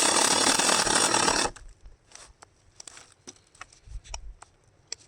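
Battery-powered 6-inch mini chainsaw running with its dry, unlubricated chain cutting into wood. It stops abruptly about a second and a half in, leaving a few faint clicks and taps.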